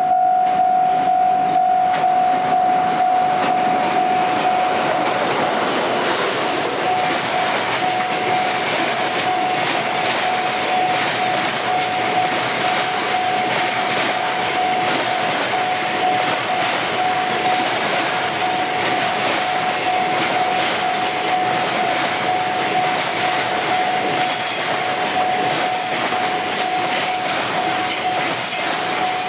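Level-crossing warning alarm ringing in a rapid repeated tone while a train runs over the crossing. The train's wheels rumble and click over the rail joints in a steady rhythm.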